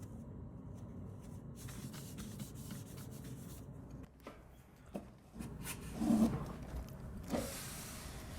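Rubbing and handling noises with a few small clicks, loudest about six seconds in, over a low steady hum.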